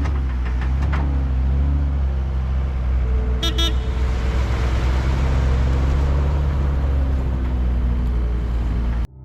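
Excavator's diesel engine running steadily, with a brief high-pitched tone about three and a half seconds in. The engine sound cuts off suddenly just before the end.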